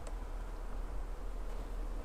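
Steady low rumble and hiss of background noise, with a single short click at the very start.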